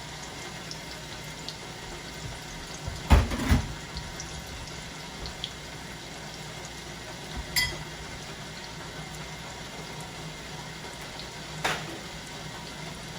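Sardine fritters frying in olive oil in a pan, a steady sizzle. Three utensil-on-pan knocks break it, the loudest about three seconds in and two smaller ones later.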